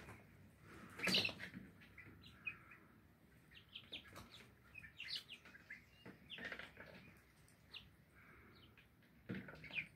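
A flock of young, half-grown chickens softly cheeping with many short, high, scattered chirps as they feed and drink. A brief louder rustle about a second in and another near the end.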